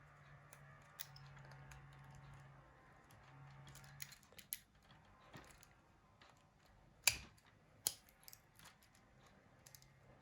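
A screwdriver clicking and scraping against a Nokia E71's front panel as it is pried at its clips, with scattered small clicks and two sharper clicks about seven and eight seconds in.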